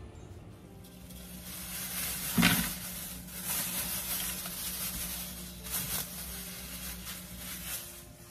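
Raw shrimp emptied from a plastic bag into a plastic colander in a stainless steel sink: a rustling hiss with a loud knock about two and a half seconds in and a couple of lighter knocks near six seconds.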